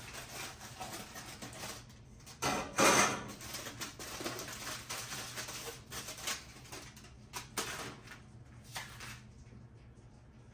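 Aluminium foil crinkling and rustling as it is handled and peeled back from a cake layer, loudest about two and a half seconds in, followed by a few light clicks and knocks.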